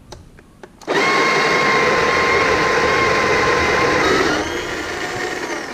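Breville Smart Grinder Pro burr grinder switched on with a few light clicks, its motor starting about a second in and grinding a batch of grinder-cleaning tablets with a loud, steady whine. About three seconds later it gets quieter and its pitch rises slightly as it keeps running.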